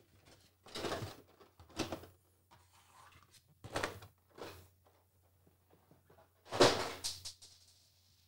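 Plastic packaging being handled: several short rustles and light knocks of plastic trays as accessories are lifted out, the loudest near the end.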